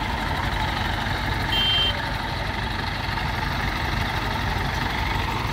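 Hydra mobile crane's engine running steadily, with one short, high electronic beep about a second and a half in.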